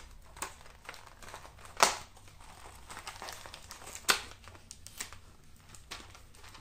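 Clear plastic packaging crinkling and rustling as it is handled and opened, with a sharp plastic snap at about two seconds in and another at about four seconds in, plus a few smaller clicks.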